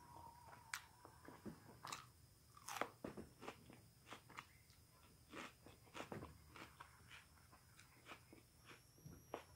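Faint close-up chewing of a mouthful of beef stroganoff, with soft wet clicks, smacks and a few crunches every second or so.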